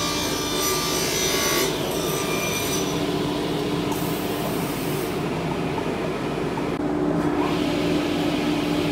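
Vertical panel saw running and cutting through wooden boards: a loud, steady sawing noise with an unbroken motor hum under it.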